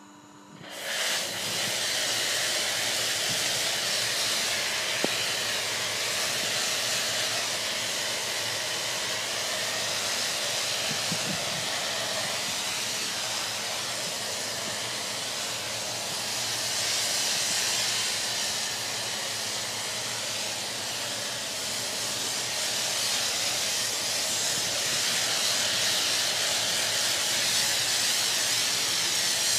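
Pressure-washer foam lance spraying snow foam, a steady hiss that starts about a second in and swells and eases slightly as the spray is swept over the car.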